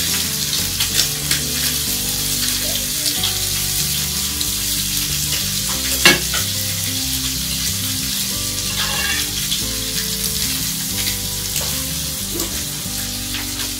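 Bone-in pork chops searing in hot olive oil and butter in a cast-iron skillet, a steady crackling sizzle at the reverse-sear stage. One sharp clack about halfway through.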